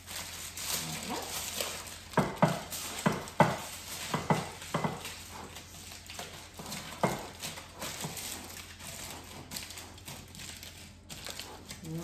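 Aluminium foil crinkling and crackling as it is crumpled and pressed around the lid of a casserole dish to seal it airtight: a run of sharp crackles from about two to five seconds in, another about seven seconds in, then fainter rustling.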